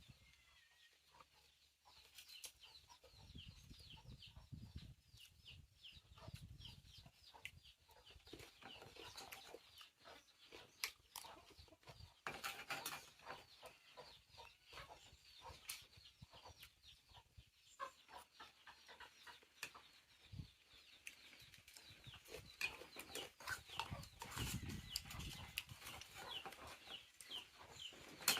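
Chickens clucking and peeping in a steady run of short, high calls, with scattered clicks and knocks.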